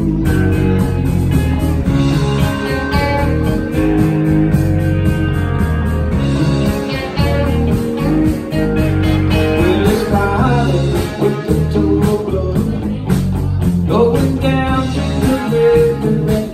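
Live band playing: electric guitars over electric bass and a drum kit keeping a steady beat.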